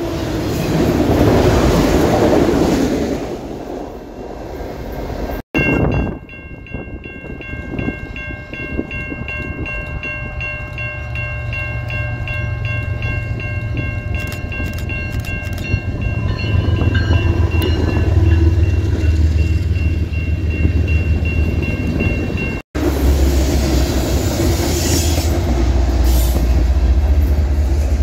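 Freight cars rolling past close by with a steady rumble. Then a diesel freight locomotive approaches, its multi-chime horn sounding for many seconds while the engine's deep rumble grows. Then freight cars pass close again with a heavy low rumble.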